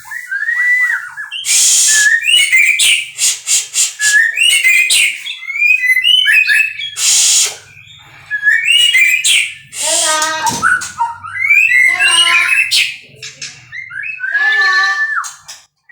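White-rumped shama singing a varied song of loud whistled phrases, broken by harsh rasping bursts.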